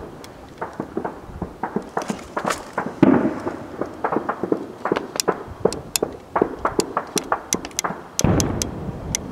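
Heavy shelling and gunfire: a rapid, irregular string of sharp cracks, with two heavier, deeper blasts about three seconds in and near the end.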